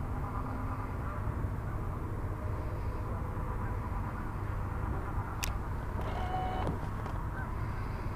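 Steady low rumble of open-air background noise aboard a fishing boat on a lake. A single sharp click comes about five and a half seconds in, followed by a short call-like sound.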